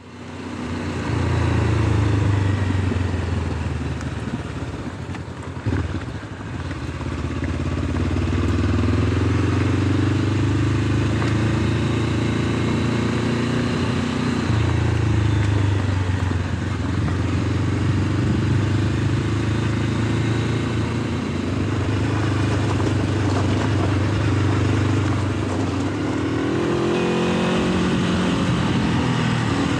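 Honda CL500's 471 cc parallel-twin engine, fitted with an aftermarket Arrow exhaust, running under way, its pitch climbing and dropping back several times. It fades in at the start, and there is one brief knock about six seconds in.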